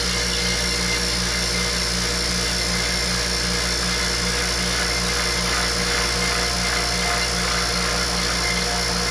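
Vacuum pump running steadily as it evacuates a glass bell jar, a loud hum with a fast, even pulse.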